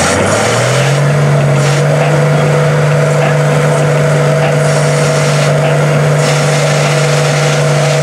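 Lifted Ford Super Duty pickup's engine revving up about half a second in, then held at steady high revs as the truck churns in deep mud.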